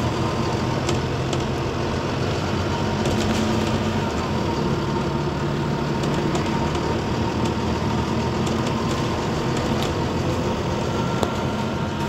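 Cabin sound of a Wright Eclipse Gemini 2 double-decker bus on the move: a steady low engine drone with a thin high whine running over it and scattered light rattles and clicks.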